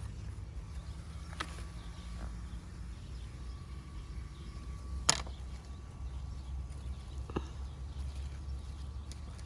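Scissors snipping plant stems: three short sharp snips, the loudest about five seconds in, over a steady low rumble.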